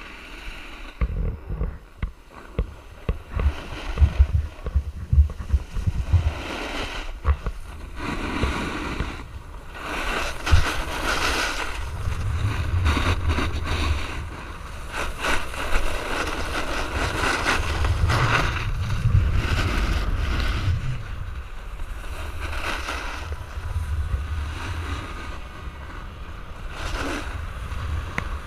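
Wind rumbling and buffeting on the microphone of a skier moving fast downhill, with the hiss and scrape of skis on hard-packed groomed snow that swells and fades with the turns. A run of sharp knocks and thuds in the first seven seconds or so.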